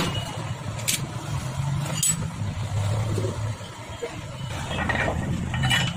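A few sharp metal clinks from a spanner working the bolts of a Bajaj Pulsar 150's clutch cover, over a low engine hum that swells and eases.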